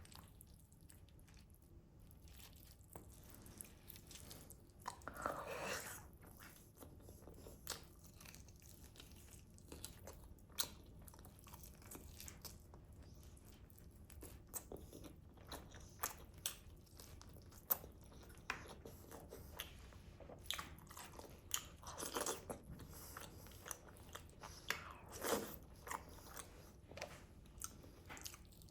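Close-miked eating of grilled chicken: biting and chewing, with crunches and many small wet mouth clicks. A few louder bites stand out among them.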